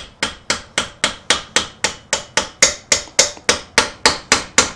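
Rapid, evenly spaced mallet blows, about four a second, on a Briggs & Stratton small engine, knocking at a stuck bearing to work it off the crankshaft. Each strike is sharp with a brief bright ring.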